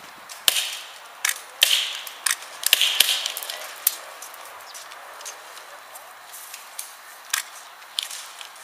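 Airsoft guns firing scattered single shots, sharp cracks, some with a short ring. Most come in the first four seconds, with a couple more near the end.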